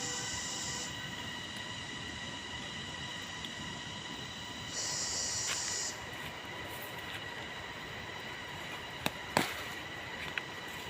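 Steady high-pitched whine of insects in the garden, with a louder high buzz that starts and stops twice. Two sharp clicks come about nine seconds in.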